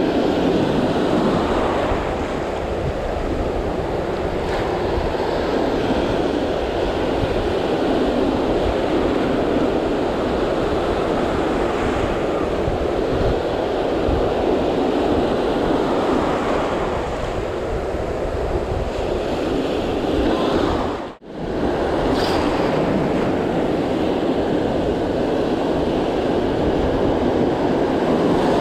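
Ocean surf breaking and washing around the shallows close by, a steady loud rush with wind buffeting the microphone. The sound cuts out for a moment about three-quarters of the way through.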